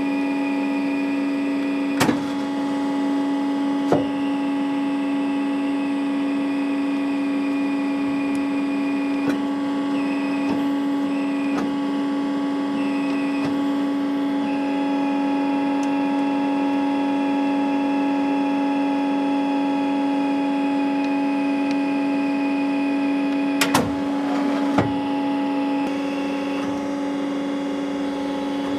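TRAUB TND 200 CNC lathe running with a steady mechanical hum, some of its higher tones shifting a couple of times. Sharp clicks and knocks come now and then, the loudest a quick cluster near the end.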